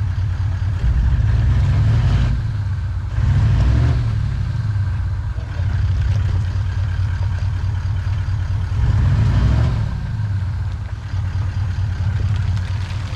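Toyota LandCruiser 70-series ute's engine labouring at low revs as it crawls up a rutted clay climb, with the revs rising and falling in several surges.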